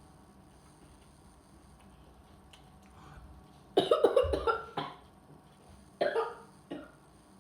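Quiet room tone, then a person coughing in two short bouts, the first about four seconds in and the second about six seconds in.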